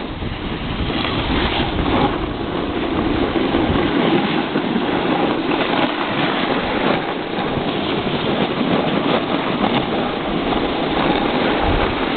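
Steady rushing noise of wind buffeting the camcorder microphone, mixed with a snowboard sliding and scraping over packed snow during a downhill run. The low rumble eases about four seconds in.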